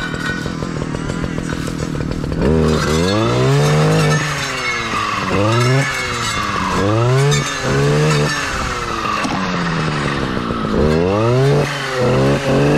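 Stihl clearing saw's two-stroke engine running at a steady part throttle for about two seconds, then revved up to full speed and let back down repeatedly, about six times, as the blade is worked through the saplings.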